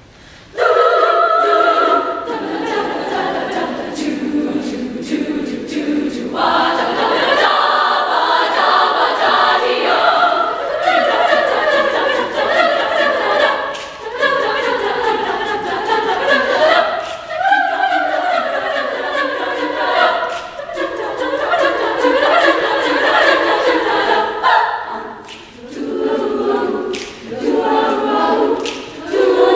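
A girls' choir singing in treble voices, coming in together about half a second in after a hush. Near the end the singing breaks into short, clipped chords.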